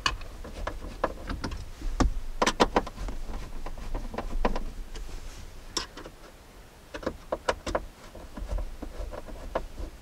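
Scattered clicks and knocks of a screwdriver against plastic dash trim as screws are driven into a dash switch panel, in small clusters every second or two.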